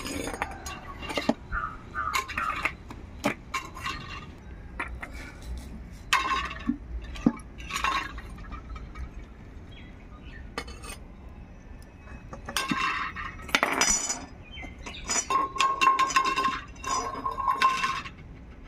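Stainless steel vessels and lids clinking, with a spoon scraping against steel as cooked rice is served into a steel tiffin box, in a run of irregular clatters.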